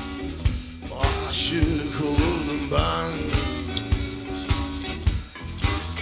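A live band plays blues-rock, with two electric guitars, a Fender Stratocaster and a Gibson semi-hollow, over a steady drum beat of about two strokes a second. Some notes bend and glide.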